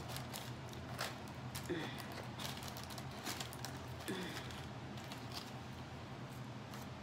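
Fried chicken and a waffle being torn apart by hand, with soft chewing and mouth sounds. These come through as faint, irregular crackles and clicks over a low steady hum.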